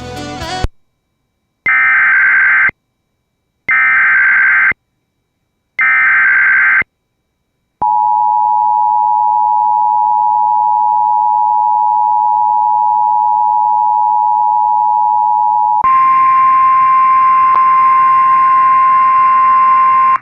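Emergency Alert System alert tones: three one-second bursts of the SAME header's buzzing digital data, then the two-tone EAS attention signal held steady for about eight seconds. It then changes to a single, slightly higher steady tone for about four seconds, which cuts off at the end.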